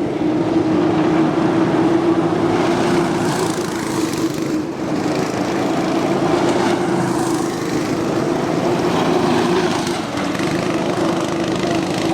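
Small single-cylinder cyclekart engine running steadily, with a few brief dips in level.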